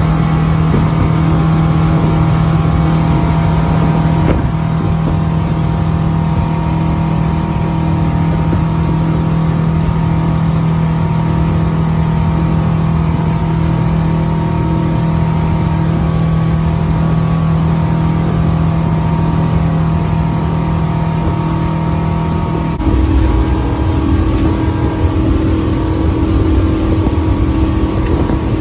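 A motorboat's engine running steadily under way: a constant drone with a strong held tone over rushing noise. About three quarters of the way through, the engine note changes and gets a little louder.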